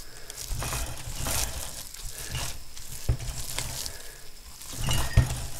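Gloved hand scooping and squeezing minced pork and back-fat sausage mass in a metal bowl: wet squelching and smacking, with a couple of sharp knocks against the bowl about three and five seconds in.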